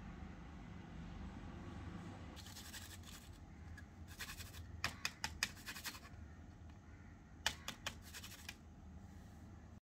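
Small spatula scraping batter out of a small bowl into a foil-lined mould, in short scratchy strokes with a few sharp clicks, over a faint steady hum.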